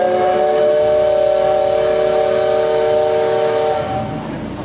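Steam locomotive C61 20's whistle blowing one long blast of several steady tones sounding together, heard from inside a passenger coach behind it. It cuts off about four seconds in, leaving the train's running rumble.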